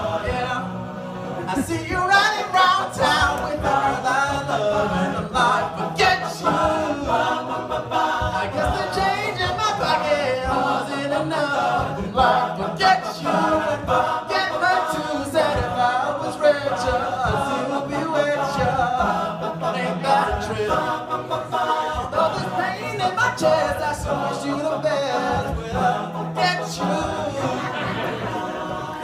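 All-male a cappella group singing a pop song: a lead voice on a microphone over close backing harmonies, with a steady vocal-percussion beat.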